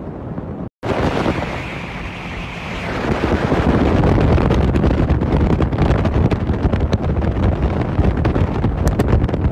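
Wind buffeting the phone's microphone aboard a speedboat under way on the river, over the rush of the boat and the water. The sound cuts out for a moment under a second in, then grows louder about three seconds in.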